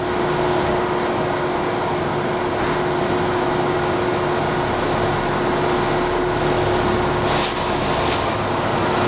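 Okamoto OGM-1236UB universal cylindrical grinder running with its table traversing along the Z axis: a steady, even machine hum with one steady mid-pitched tone held through it.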